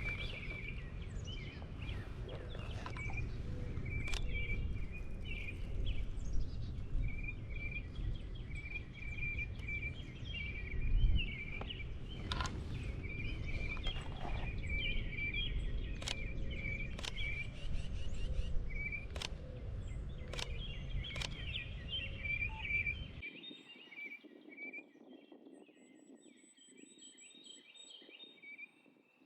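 Small birds chirping over and over with short notes, over wind rumble on the microphone and a few sharp clicks. About 23 seconds in the wind rumble cuts off abruptly and the chirping goes on more faintly.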